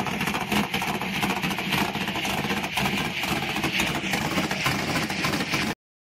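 Jet boat's V8 engine with open chrome zoomie headers idling loudly, with a rapid, uneven exhaust pulse. The sound cuts off suddenly near the end.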